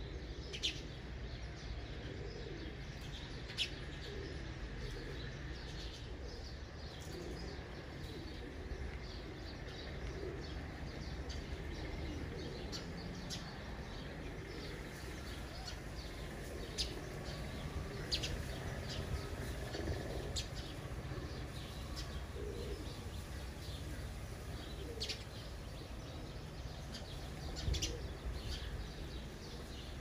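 House sparrow chirping: short, sharp single chirps at irregular intervals, over a steady low background hum.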